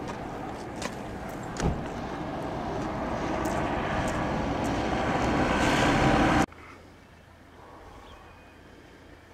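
Motor vehicle noise growing steadily louder as it approaches, with a single thump about one and a half seconds in; the sound cuts off abruptly about six and a half seconds in, leaving quiet outdoor ambience.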